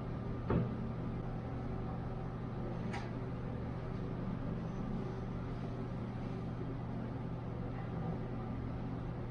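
Steady low mechanical hum of a running workshop machine, with a short knock about half a second in and a sharp click about three seconds in.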